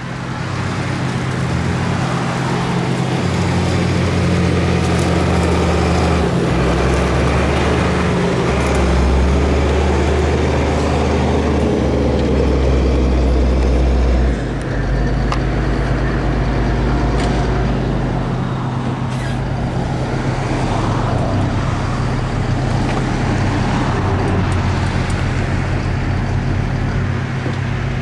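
Self-propelled forage harvester running under load, its diesel engine and chopping head cutting silage corn and blowing it into a truck driving alongside, the truck's engine running with it. A steady low engine hum that steps down in pitch about halfway through.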